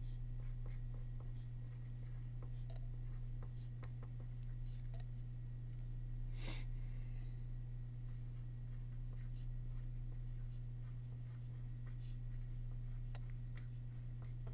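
Pen writing on paper: a run of short, light scratching strokes as words are written out by hand, with a brief louder rustle partway through. A steady low hum runs underneath.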